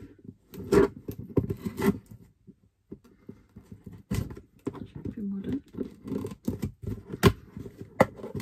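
A cardboard subscription box being handled and turned over on a desk: irregular knocks, taps and scrapes, the loudest a sharp knock about seven seconds in.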